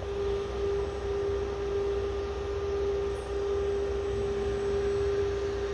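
A steady electrical hum: one constant mid-pitched tone with fainter higher tones, over a low rumble and even hiss.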